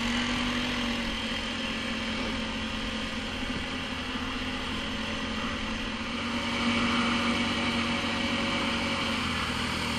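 ATV engine running at steady revs, getting a little louder for a couple of seconds about two-thirds of the way through.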